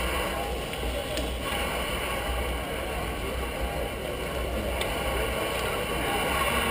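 Steady wind rumble on the microphone of a camera riding with a slow-moving pack of bicycles, with the even hum of the street behind it.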